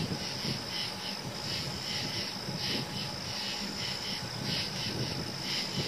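Night insects chirping in quick repeated pulses, a few per second, over a steady low background noise.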